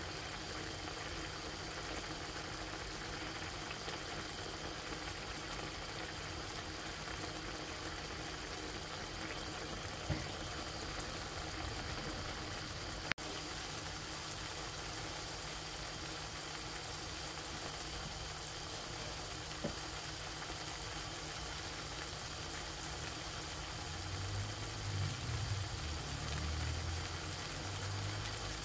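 Vegetable paella simmering in a wide pan: the broth bubbling steadily with a light sizzle. Two sharp clicks come in the middle, and a low rumble near the end.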